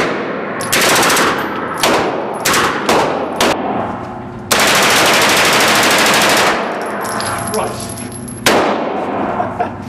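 Automatic firearm shooting on a range: a few single shots and short bursts, then a sustained full-auto burst of about two seconds, and one more shot near the end. Really loud, with hard recoil.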